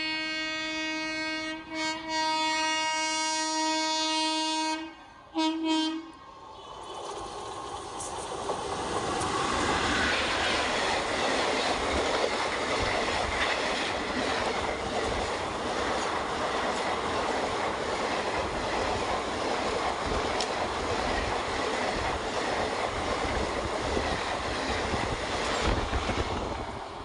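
Electric locomotive's horn sounding a long blast with a short break, then a short toot about five seconds in, as an express train comes in. The express then runs through the station without stopping, its coaches rumbling and wheels clattering past for about twenty seconds.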